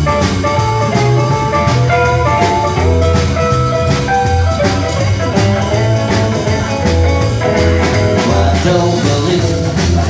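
Rockabilly trio playing live: electric guitar, upright double bass and drum kit in an instrumental passage without vocals, over a steady, driving beat.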